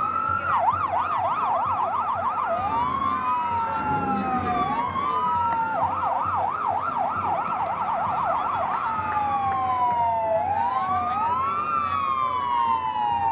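Electronic emergency-vehicle siren cycling through its patterns: slow rising and falling wails alternate with fast yelping sweeps, about two seconds of yelp at the start and three seconds more in the middle. Near the end two tones sound together, slightly apart in pitch.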